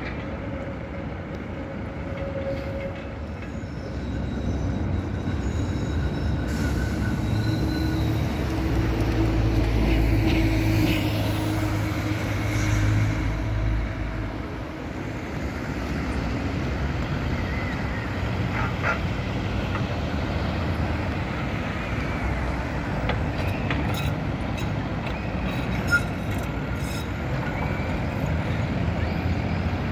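Trams running through a street junction amid road traffic: a low rumble of a passing tram swells and peaks about ten seconds in, then eases, with faint steel-wheel squeal on the rails. A single sharp click comes near the end.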